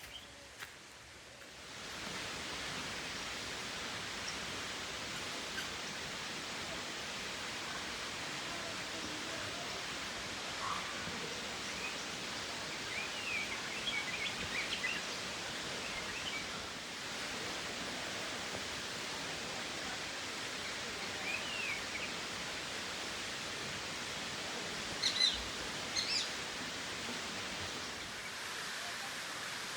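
Steady rushing of a waterfall, fading in over the first couple of seconds. A few short bird chirps come through around the middle and again near the end.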